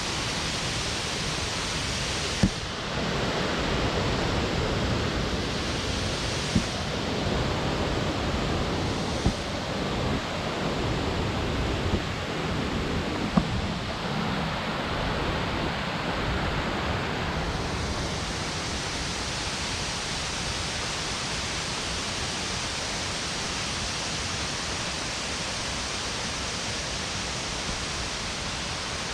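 Steady rushing of a waterfall, with about five short sharp knocks in the first half.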